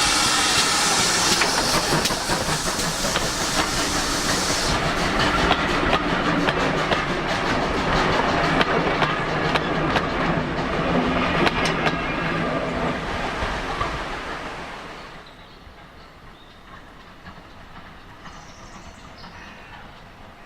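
A steam train passing close by behind the GWR 57xx-class pannier tank locomotive, with wheels clicking over the rail joints. A loud steam hiss in the first few seconds cuts off abruptly, and the train's sound fades away about 15 seconds in.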